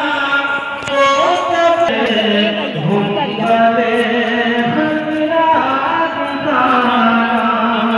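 Chant-like singing in long, held notes that slide from one pitch to the next, with music behind it.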